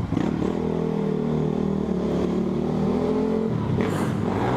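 Dirt bike engine under throttle, which sounds like a big 450, heard from the rider's helmet camera. It holds a steady note, drops in pitch about three and a half seconds in, then revs up again near the end.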